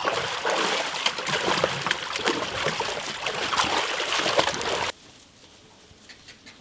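Water splashing in a large aluminium pot as whole deer carcasses are lifted and rinsed in it by hand. The splashing cuts off abruptly about five seconds in, leaving only a quiet background.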